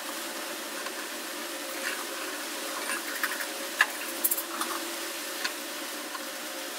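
Steady background hiss with a faint low hum. Several light clicks and taps between about two and four and a half seconds in come from hands handling a fishing rod, its spinning reel and a spool of fishing line.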